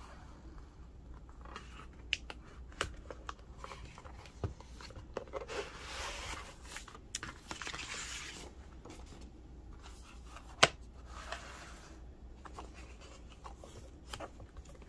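A cardboard presentation case and a softcover notebook being handled: paper and card rustling and sliding, with scattered light taps and one sharp knock about two-thirds of the way through.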